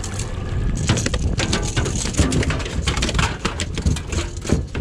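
Rapid, irregular knocks and slaps as a freshly landed threadfin salmon thrashes against the aluminium boat's deck and hull, over a steady low rumble.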